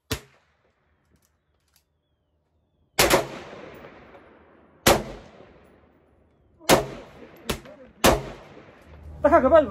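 Gunshots: four loud shots about two seconds apart, each followed by a long echoing tail, with a short sharp crack at the very start and a lighter shot between the third and fourth. A voice starts just before the end.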